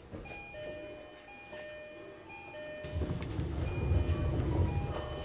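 Station departure melody on the Tokyo Metro Yurakucho Line platform, a chime tune of clear steady notes changing pitch, heard from inside the train car. From about three seconds in a loud low rumble rises under the melody and cuts off near the end.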